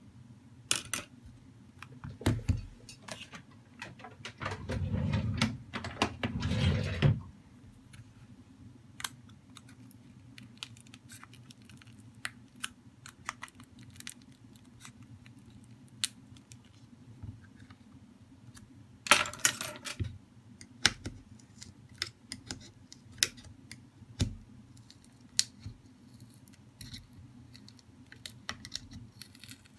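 Clicks and taps from a Samsung A32 smartphone's plastic frame and small parts being handled during disassembly, with a longer rubbing scrape about four to seven seconds in. Later comes a run of light ticks as a pry pick works along the frame's edge.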